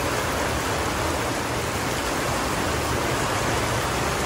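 Heavy rain pouring steadily, a dense even hiss of downpour.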